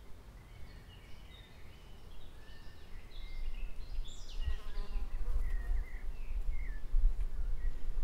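Woodland ambience: small birds chirping on and off, with a flying insect buzzing close past the microphone about halfway through, its hum falling in pitch. A low rumble grows louder in the second half.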